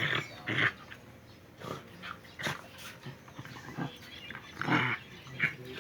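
Native farm dog barking, several short separate barks, the loudest near the end.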